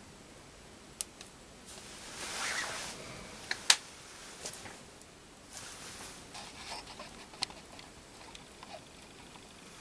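Light handling noises: a glass jar spirit burner scraping on a wooden bench, with a few sharp clicks, the sharpest about four seconds in.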